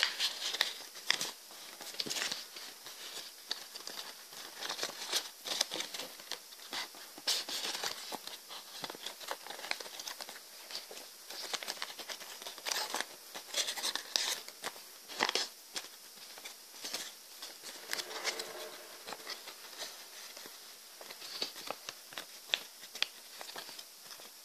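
Origami paper being folded and creased by hand close to the microphone: irregular rustling and crinkling with many small taps and clicks.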